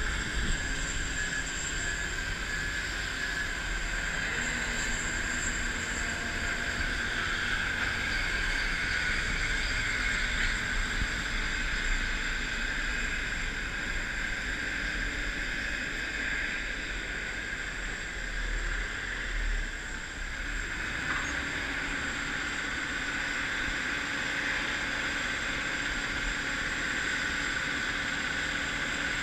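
Jet engine running steadily: a constant turbine whine over a low rumble.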